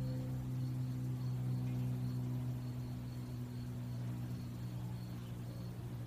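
A low steady hum that slowly fades, with a faint high chirp repeating about twice a second.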